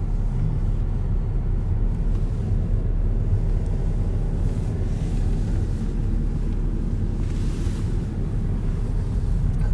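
Steady low rumble of a car's engine and tyres on the road, heard from inside the moving car, with a brief rise of hiss about seven seconds in.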